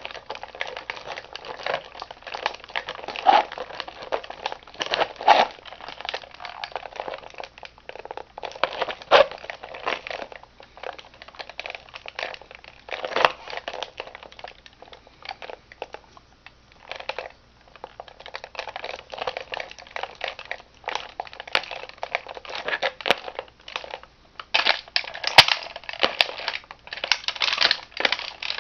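A Mustang toy car crunching and crackling under a shoe as it is stomped and crushed, in an irregular run of cracks and crunches with several louder crunches and a dense burst near the end.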